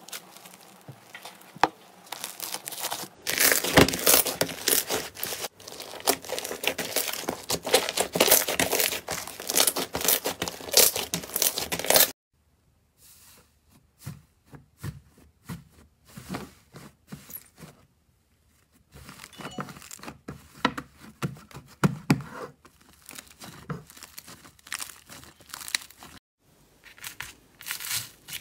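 Slime being stretched and squeezed by hand, giving dense sticky crackling and tearing clicks. About twelve seconds in it turns to quieter, scattered pops and clicks as thick slime is pressed with the fingertips.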